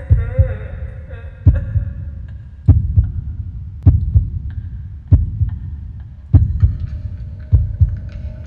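Heartbeat sound effect: a slow, heavy double thump, lub-dub, repeating about every 1.2 seconds.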